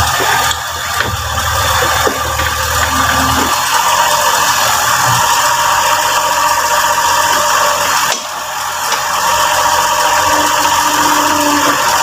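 Diesel engine of a Yanmar mini excavator running steadily as the machine digs. Its low drone drops away about three and a half seconds in.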